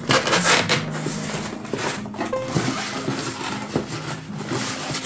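Cardboard boxes rustling, scraping and knocking as they are handled and a smaller box is packed into a larger carton.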